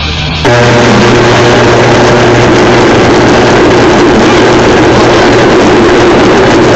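Electric motors of power-tool race cars running flat out during a drag race: a loud, steady motor whine with a low hum that starts abruptly about half a second in and stops near the end.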